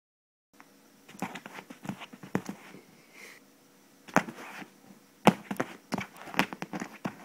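Cat pouncing on and batting at a camera held near the floor: irregular sharp knocks and scuffles of paws striking and rubbing the device, the loudest a little past halfway through.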